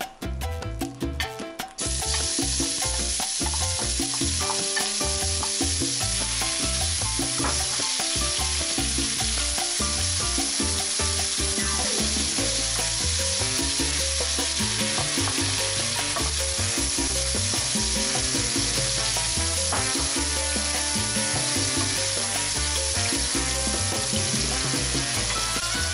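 Diced onion sizzling in hot oil in a pan. The hiss starts suddenly about two seconds in as the onion goes in, then holds steady while it is stirred with a wooden spoon. Background music plays underneath.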